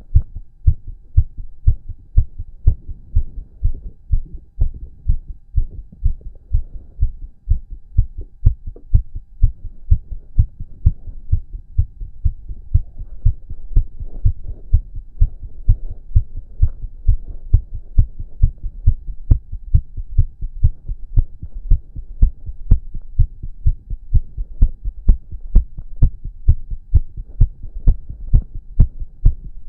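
A man's heartbeat heard close up: a long, steady run of quick, regular low thumps, with a faint hum beneath.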